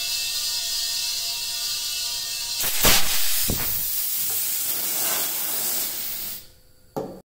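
Compressed air hissing steadily into a glass jug through a hose fitting, with a thin whistle over it. About three seconds in, the stopper pops out with a loud crack, followed by a second sharp knock; this sudden release of pressure is what makes the cloud form. The hiss runs on, then cuts off near the end, followed by a short click.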